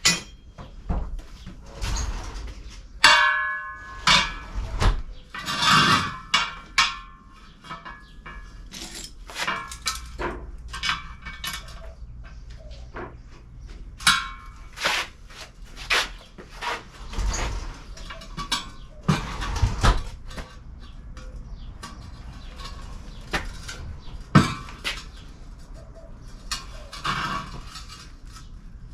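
A tube bender working 1/2-inch tubing around its die, with irregular metal clanks and knocks and a few short squeals of metal on metal.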